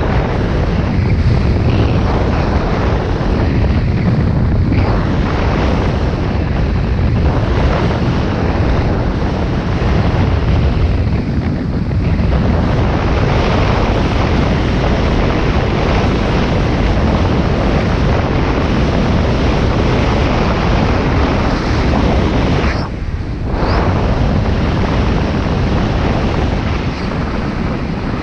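Wind rushing and buffeting over the microphone of a skier heading downhill, mixed with the steady hiss of skis sliding on packed snow. It eases briefly about three-quarters of the way through.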